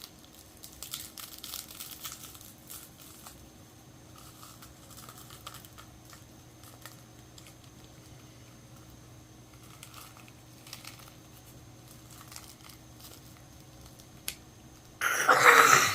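Pringles potato crisps being crushed into powder in a hand: a quick run of dry crackling for the first few seconds, then faint, scattered crackles. A loud, short rustling burst comes near the end.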